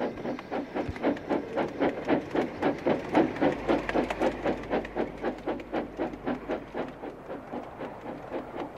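Steam tram engine chuffing steadily as it pulls away with its coach, in a rapid, even beat that grows to its loudest about three seconds in and then slowly fades as it draws away.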